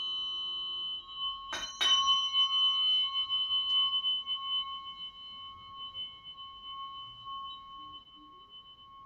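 Metal tuning fork struck twice in quick succession about two seconds in, then ringing with a clear tone and high overtones that slowly fade away.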